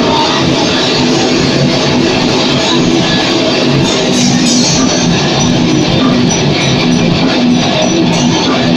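Heavy metal band playing live in a rehearsal room: loud distorted electric guitar over a drum kit, at an even, unbroken loudness.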